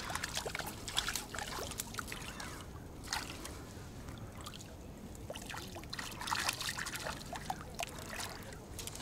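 Water splashing and trickling in irregular small bursts, busier near the start and again about six seconds in.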